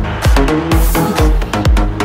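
Electronic dance music with a steady kick drum, about two beats a second, under short stepped synth notes.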